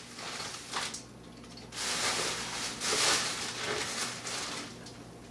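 Plastic packaging and bubble wrap crinkling and rustling as hands dig through a cardboard box, with a few small clicks and then two longer stretches of rustling about two and three seconds in.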